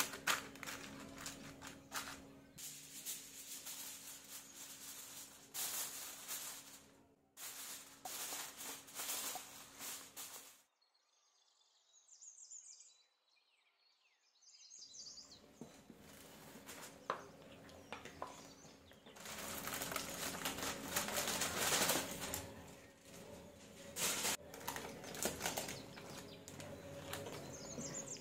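Parchment paper and aluminium foil crinkling and rustling as they are handled and tucked over a glass baking dish. The rustling breaks off into near silence about eleven seconds in, then resumes.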